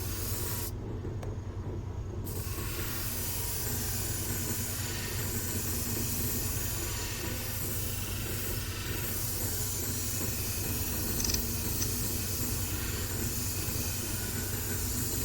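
Shear-sharpening machine running steadily, with a curved grooming-shear blade hissing against the spinning hone from about two seconds in as its edge is ground at about a 30-degree angle.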